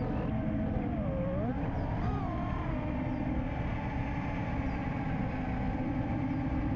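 Five-inch FPV freestyle quadcopter's brushless motors (Ethix Stout 2306 1750 kV) whining steadily over heavy prop-wash and wind rumble. The pitch dips and then swoops up about a second in as the throttle changes, then settles again.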